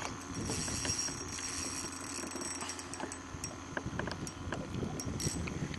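Boat motor running steadily, with a faint high whine and scattered small clicks and knocks, as the boat is moved off a snag where a hooked fish is hung up.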